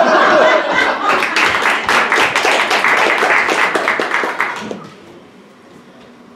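Audience laughter and applause, which dies away after about five seconds.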